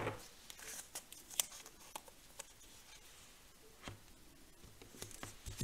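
Faint, scattered small clicks and light handling noises of hands working with craft paper and adhesive tape on a desk, a handful of separate ticks with a short cluster near the end.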